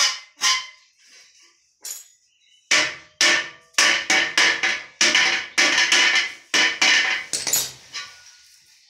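Hammer blows on metal, each with a short ringing tail: two strikes at the start, then a quick run of about fifteen blows, two to three a second, from about three seconds in, as a part is knocked into place on the machine.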